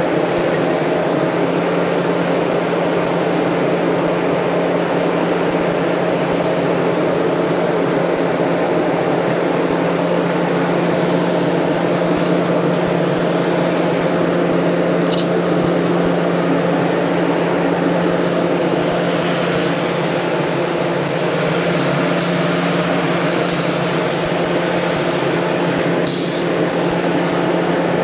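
Air-fed paint spray gun hissing steadily as paint is sprayed onto motorcycle parts, over a steady machine hum. A few short, sharper bursts of air hiss come near the end.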